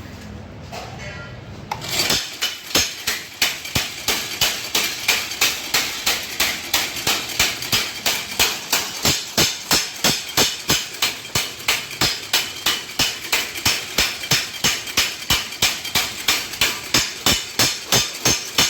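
Motor-driven eccentric-cam power hammer starting up about two seconds in and then striking the workpiece in a steady, even rhythm of a little over two blows a second.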